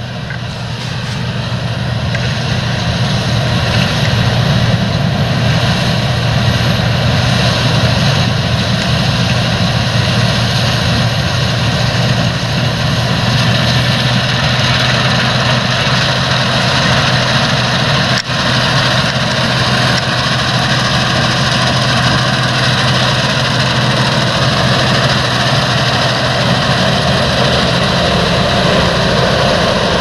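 Claas Lexion 780 combine harvester running under load while cutting wheat: a steady engine drone with constant machinery noise from the header and threshing, broken briefly about eighteen seconds in.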